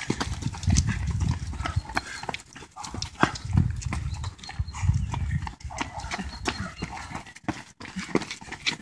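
Footsteps of several runners in running shoes passing close by on a brick-paved path, a quick irregular patter of footfalls.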